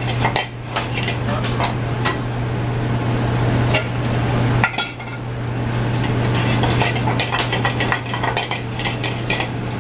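Steel sauté pans and a metal spoon clinking and scraping on a commercial gas range, many short irregular clinks over a steady low hum.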